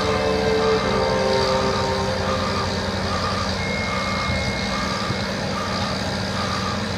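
Motion alarm on construction machinery beeping evenly, about five beeps every four seconds, over the steady hum of a diesel engine. A brief high thin tone sounds about halfway through.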